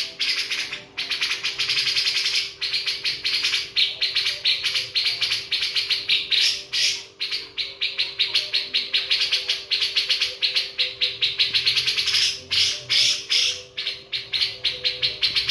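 Birds chirping in a rapid, almost unbroken chatter of short calls, several a second, over a faint steady hum.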